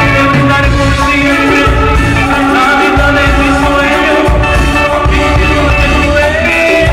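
Live band playing a Latin-style song on electric guitar, bass guitar and drum kit, with congas. The music is loud and continuous.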